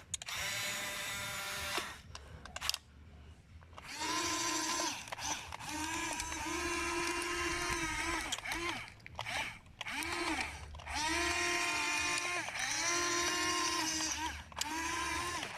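Small electric gear motors of a toy remote-control excavator whining in repeated spells as the arm and bucket are worked, each spell starting and stopping with a slight dip in pitch. The motors pause for about two seconds near the start.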